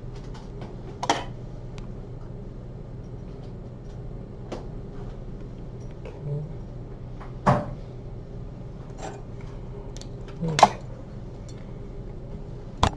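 Metal surgical instruments (forceps and needle holder) clicking and clinking as a fine suture is handled, about six sharp clicks a few seconds apart over a steady low hum.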